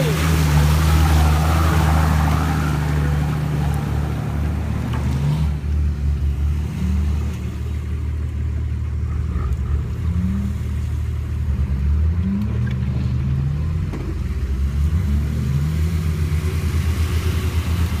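Nissan Patrol GR diesel engine running under load, revving up and down again and again as the 4x4 wades through a river, heard from inside the cab. Water rushes and splashes during the first five seconds or so.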